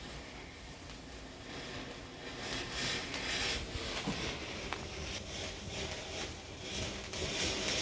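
Garden fireworks going off: a hissing spray that swells about two and a half seconds in and again near the end, with a couple of sharp cracks in between.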